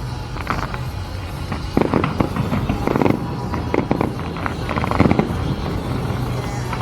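Aerial fireworks bursting in irregular loud bangs, some in quick clusters, with crackling between them, over the show's music soundtrack.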